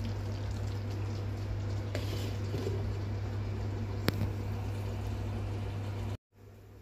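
Steady low hum over the quiet bubbling of a creamy sauce simmering in a frying pan. About four seconds in, a glass pan lid is set on the pan with a single sharp clink. Near the end the sound cuts out and comes back quieter.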